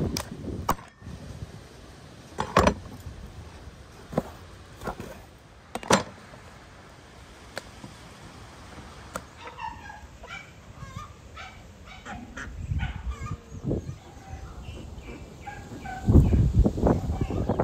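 A large knife chopping a lamb carcass on a wooden table, with single sharp chops a second or two apart. Then come short chirping bird calls, and near the end a duck calls loudly.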